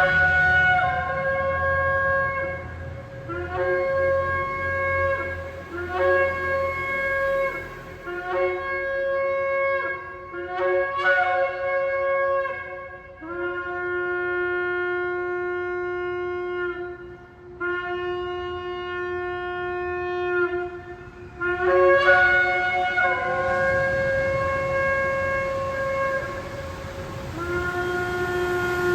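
A shofar (ram's-horn trumpet) being blown: a series of blasts whose pitch steps between two levels, with a run of short, rapid broken notes around ten seconds in and long, steady held notes after it.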